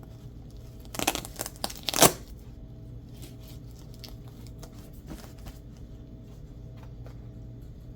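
A Velcro (hook-and-loop) patch being ripped off a backpack: one rasping tear about a second in, lasting about a second and loudest at its end, followed by faint handling clicks.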